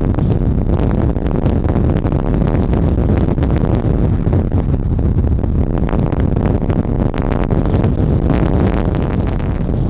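Strong wind buffeting the microphone: a loud, steady low rumble broken by many small crackles from gusts.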